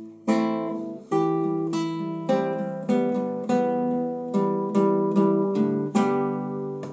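Nylon-string classical guitar strummed in a steady rhythm of chords, about two strokes a second, each chord ringing and fading before the next.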